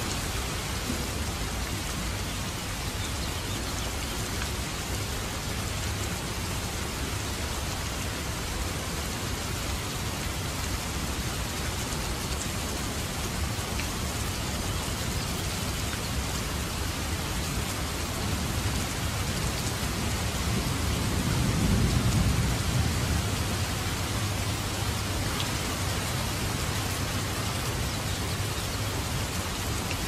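Steady rain falling on puddled water and hard ground, an even hiss of countless drops. A low rumble swells and fades about two-thirds of the way through.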